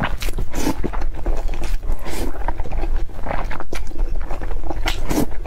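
Close-miked eating sounds: wet chewing and mouth smacking in an irregular run of clicks.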